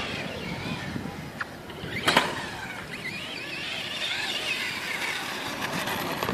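Electric motor of an RC monster truck running on a 4S LiPo, whining with a pitch that rises and falls as the throttle changes, with one sharp knock about two seconds in.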